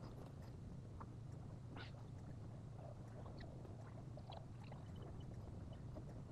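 Quiet room tone: a steady low hum with a few faint, scattered light clicks and taps, such as a paintbrush and palette being handled.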